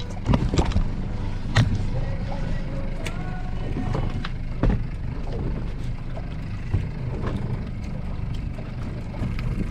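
Small fishing boat's engine running steadily at a low hum, with a few sharp knocks and clatters on the boat, the loudest about half a second and a second and a half in.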